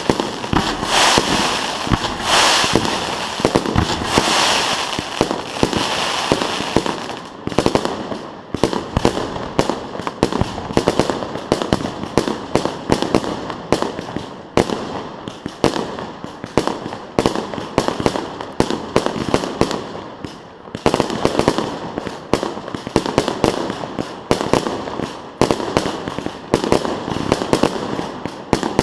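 Fireworks display: a dense, continuous barrage of rapid bangs and crackling. The first several seconds also carry broader hissing bursts, then it settles into fast, close-packed cracks.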